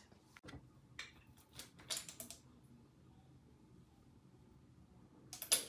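Light clicks and small handling noises of a glass dropper bottle as serum is drawn up and dropped onto the face, with a short rustle about two seconds in and a louder sharp knock near the end.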